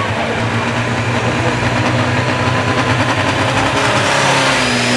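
Diesel engine of a light pro stock pulling tractor, hooked to the sled, running at a steady idle, then starting to rev up near the end as its stack smoke turns black.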